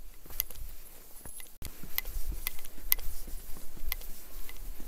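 Light clicks and taps of someone walking along a trail and wooden boardwalk, a few a second and unevenly spaced, with wind rumbling on the microphone.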